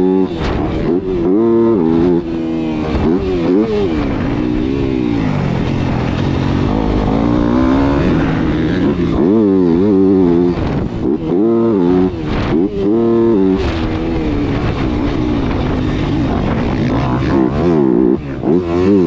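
Yamaha motocross bike's engine heard from on board while being ridden, revving up and dropping off again and again as the throttle is opened and closed through the track, with a steadier stretch near the middle.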